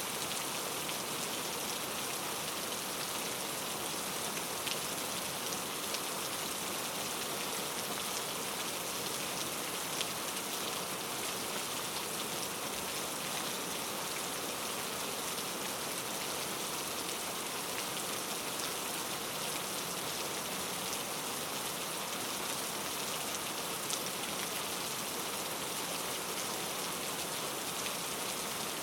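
Steady rain falling on a surface, an even hiss with scattered drop ticks.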